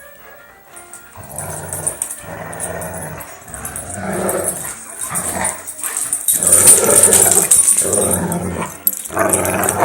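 Dogs growling over and over in play, a run of rough growls about a second long each that grow louder about halfway through.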